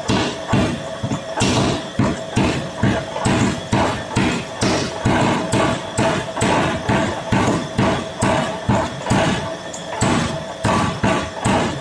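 Power hammer pounding a red-hot steel ball held in a rounded die, shaping 45 mm round bar into a ball finial: a steady run of heavy blows, about two a second, over a steady hum.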